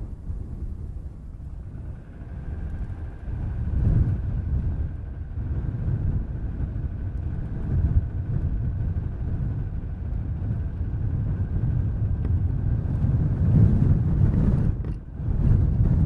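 Low, uneven rumble of a car on the move: road and wind noise, with a faint steady high whine through the middle part.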